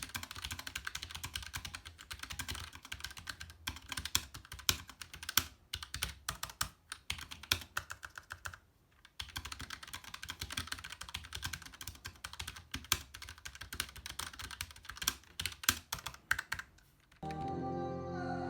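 Typing on a Keychron K1 Version 4 low-profile mechanical keyboard with Gateron red linear switches: a rapid run of light key clicks and clacks, with a brief pause about halfway through. Background music comes in near the end.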